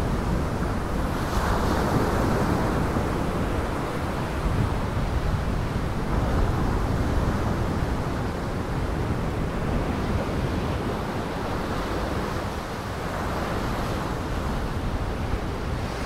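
Heavy storm surf breaking and churning, with wind: a steady rush of water noise that swells slightly now and then.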